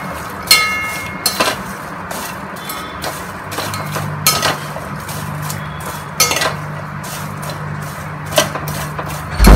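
A steel spoon stirring popcorn in a stainless steel bowl. The spoon clinks against the bowl at uneven intervals, one strike about half a second in ringing on briefly, with the popcorn rustling in between.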